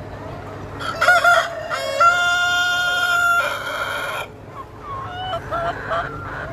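Rooster crowing: one full crow starting about a second in, rising into a long held note and ending in a falling tail. Softer short clucking calls follow near the end.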